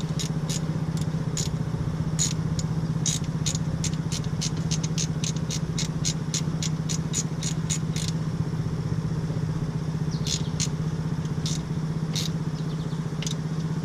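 Ratchet wrench clicking through quick strokes, about four clicks a second, as a part is cranked down tight, slowing to a few scattered clicks near the end. A steady low hum runs underneath.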